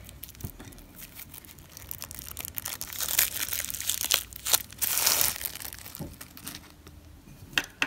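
Tight plastic shrink-wrap crinkling and crackling as it is peeled off a deck of cards, in a run of crackles that is loudest about three and five seconds in.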